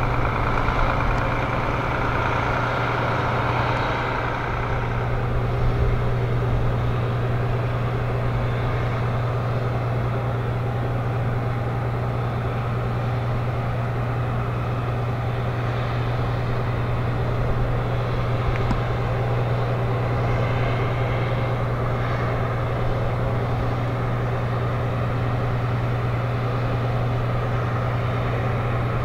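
Heavy machinery running with a steady low hum under a constant wash of mechanical noise.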